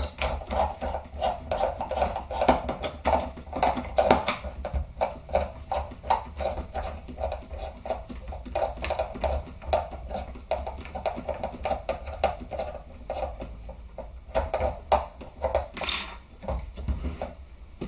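A screw being driven into an airsoft rifle's body: repeated rhythmic scraping with clicks and small knocks as the parts are handled.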